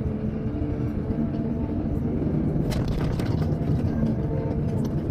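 Engine of heavy earthmoving machinery running steadily with a low rumble, with a couple of short knocks a little past halfway.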